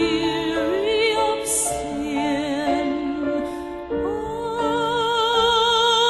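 Slow gospel hymn music with long notes held with a wide vibrato; a new, higher held note enters about four seconds in.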